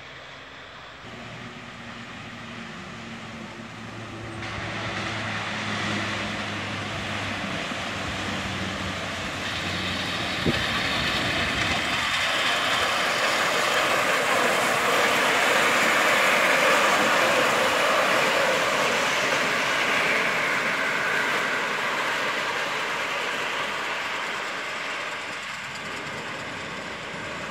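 Miniature ride-on steam train pulling passenger cars, approaching, passing and moving away as it runs on its rails. It grows louder, is loudest a little past halfway, then fades.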